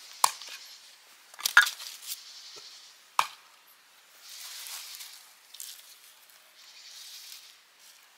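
Batoning firewood: the spine of a fixed-blade knife set in a wooden round is struck, giving four sharp knocks in the first three and a half seconds, the loudest about a second and a half in. Then come stretches of scraping and rustling as the split wood is worked apart.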